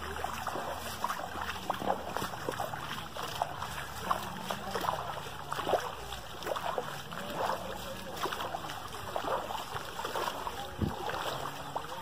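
Bare feet wading through a shallow stream of running water over sand: a string of small, irregular splashes from steps in the water, over the steady rush of the current.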